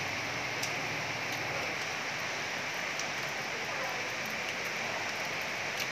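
Heavy rain falling steadily: a dense, even hiss, with a few sharp ticks of drops landing close by.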